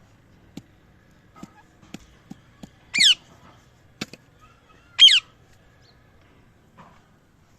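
A parrot gives two short, loud squawks about two seconds apart, each falling in pitch, with a few faint clicks or taps before them.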